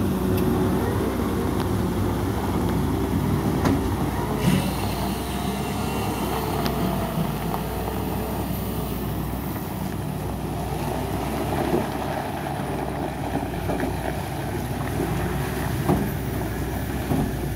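Volvo excavator's diesel engine running steadily, with a wavering higher tone over it and several sharp clanks spread through.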